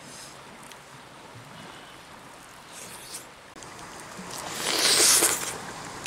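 Close-up eating sounds: biting into charred grilled fish and the crackle of its skin and flesh being torn and chewed, loudest about five seconds in.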